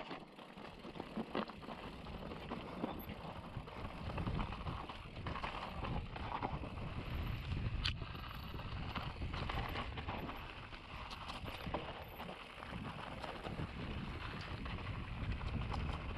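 Mountain bike ridden downhill over a rough, rocky trail: tyres rolling over stones, with frequent irregular knocks and rattles from the chain and frame, and wind rushing past.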